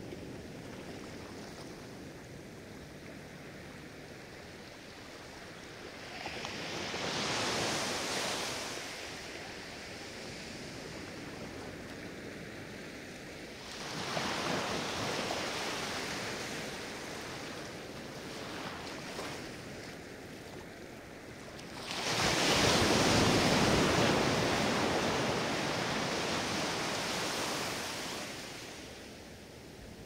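Ocean surf on a sandy beach: small waves breaking and washing up the sand in three surges about eight seconds apart, the last the loudest and longest, with a steady hiss of sea between them.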